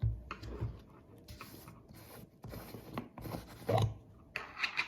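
A metal tablespoon scraping and rubbing in a container while scooping out tahini, with a couple of dull knocks, one at the very start and one about four seconds in.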